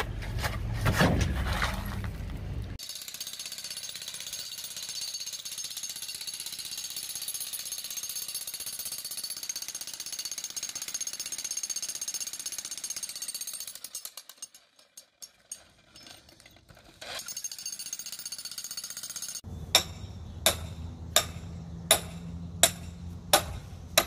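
Bosch electric breaker hammer breaking up an old concrete sidewalk, running steadily and stopping briefly about two-thirds of the way through. Near the end a hand hammer drives a wooden form stake with about six evenly spaced strikes over a low rumble.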